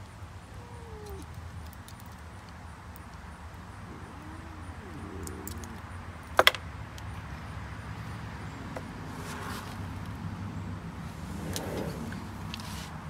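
A single sharp plastic click about halfway through, the cat collar's buckle being snapped open, over a steady low outdoor hum. A few faint short wavering calls come in the first half, and soft rustling near the end.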